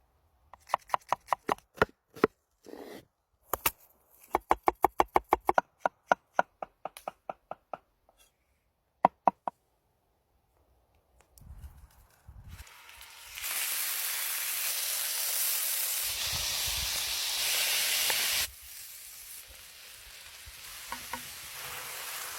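A knife chopping food on a cutting board in quick, even strokes, several a second. Then food sizzling loudly as it fries in a hot pan, easing to a quieter steady sizzle after a few seconds.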